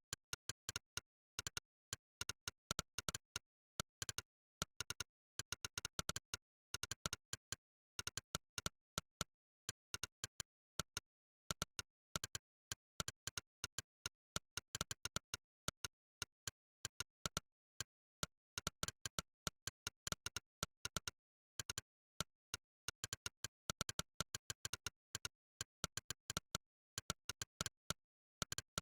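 Monkeytype's synthetic 'click' keypress sound, one short click per keystroke, in quick irregular runs of typing with brief pauses, over dead digital silence.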